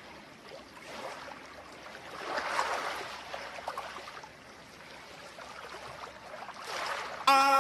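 Beach ambience of sea waves washing on the shore, swelling about two and a half seconds in. Near the end a loud held note with steady overtones cuts in suddenly.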